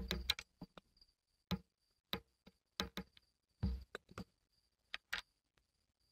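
A string of irregular sharp clicks and taps, about fifteen in six seconds, under the faint steady high chirping of a cricket.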